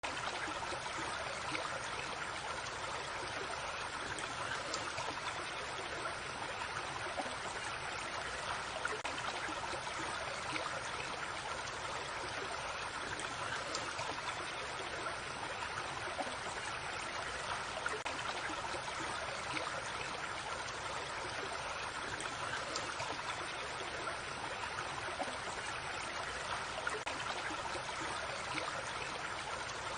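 A small creek flowing and trickling steadily over stones, a constant babble of water.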